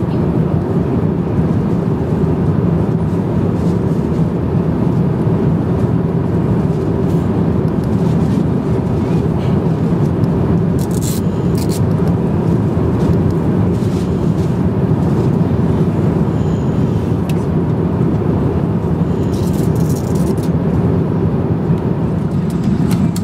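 Steady cabin noise of an Airbus A350-900 in cruise flight, heard from an economy seat: an even, constant rumble of engines and rushing air.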